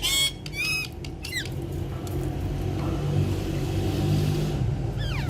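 Parrots squawking: short, high calls falling in pitch in the first second and a half, and another near the end. A steady low hum runs underneath.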